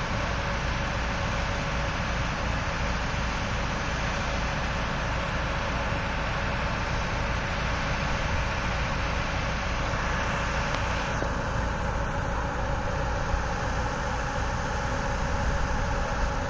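Heavy diesel machinery running steadily: a Hyundai 140LC-7 crawler excavator's engine working as it climbs onto a lowbed truck, with a backhoe loader running alongside.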